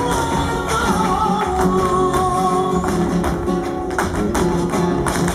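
Flamenco music in the alegrías form: a singer holds a wavering, drawn-out line over strummed guitar, with sharp percussive hits throughout.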